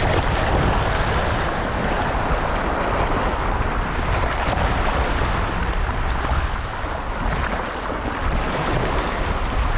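Small waves washing and breaking at the shoreline in a steady rush, with wind buffeting the microphone.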